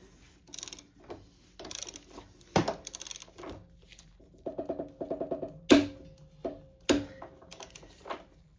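Ratcheting torque wrench tightening the steering stem nut of a 2005 Yamaha R6 toward its set torque: short runs of rapid ratchet clicks with several sharp metallic knocks, the loudest a little before six seconds in.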